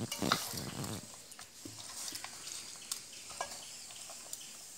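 Hand mixing raw chicken leg pieces in a stainless steel bowl: soft wet squelching and rubbing with scattered light clicks against the bowl, busiest in the first second and fainter after.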